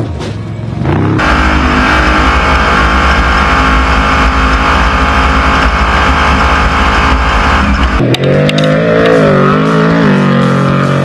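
Trophy truck engine running hard at high, steady revs, then after a cut about eight seconds in, its revs rising and falling as it is driven hard across the desert.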